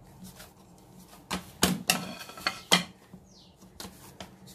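Hands kneading stiff maida dough in a ceramic plate, with a handful of sharp knocks against the plate from about a second and a half in, one with a short ring.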